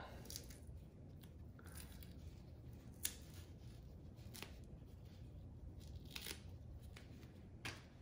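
Faint rustling of tissue paper and scattered small clicks as hands unwrap a machined aluminium magnetic mount, with one sharper tick about three seconds in.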